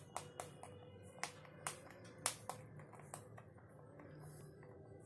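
Rabbits nibbling a bar of milk chocolate: a run of sharp, irregular crunching clicks, about a dozen over three seconds, then fading away.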